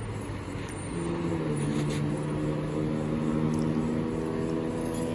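A motor vehicle's engine running with a steady drone, rising a little in pitch about two seconds in. It carries up from the roads and car park below.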